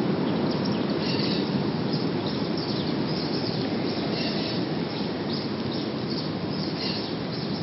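A steady low rumble that slowly fades, with short high chirps scattered over it.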